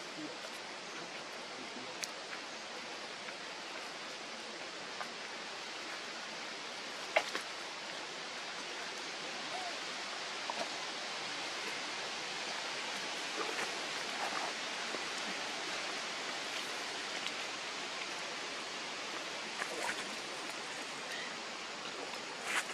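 Steady outdoor background hiss in forest. A few faint clicks and, now and then, a faint short squeak sound over it.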